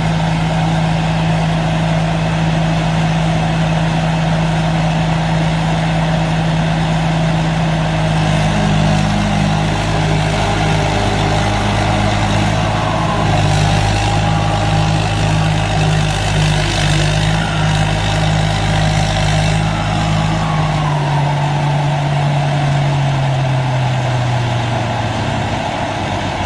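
Heavy diesel engines running steadily, with a second engine note joining about a third of the way in; near the end the engine speed drops and the pitch falls.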